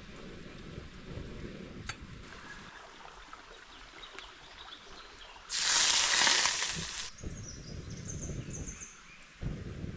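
Low rustling and handling noise of someone working on the forest floor, broken about five and a half seconds in by a loud hiss that lasts about a second and a half.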